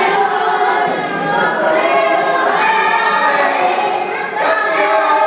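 A group of young boys singing a victory chant together in unison.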